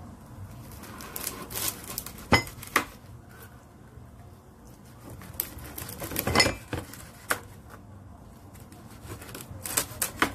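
A brittle lump being crushed by hand against a cutting board: irregular sharp crackles and snaps, loudest about two and six seconds in, with a quick cluster near the end.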